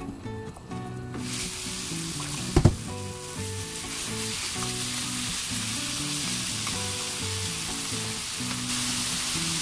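Sliced beef sizzling in hot cooking oil in a nonstick frying pan as it is laid in and spread out with chopsticks; the sizzle starts about a second in and holds steady. A single sharp knock sounds about two and a half seconds in.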